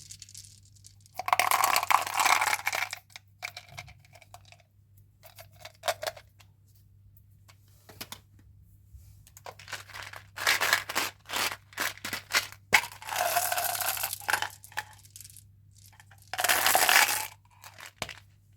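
Candy packaging being opened and handled: several bursts of tearing and crinkling, with sharp clicks and small clattering knocks between them.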